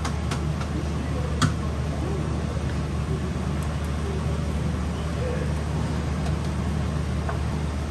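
Steady low mechanical hum from the taiyaki shop's equipment, with one sharp clink of metal about a second and a half in while the cast-iron fish mould is filled.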